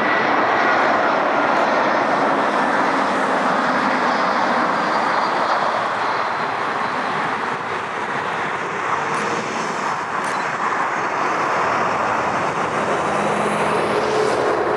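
Jet airliner engines, a loud steady rush with faint whining tones above it.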